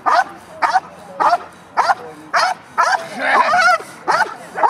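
Belgian Malinois barking steadily and rhythmically, a little under two barks a second. Around three and a half seconds in, one longer wavering cry breaks the run.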